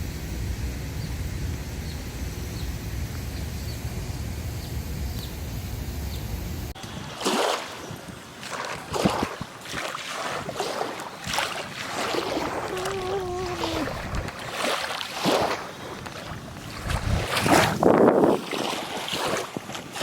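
Wind buffeting the microphone outdoors: a steady low rumble, then after a sudden change about a third of the way in, irregular gusty swishes. Partway through there is a brief wavering pitched call.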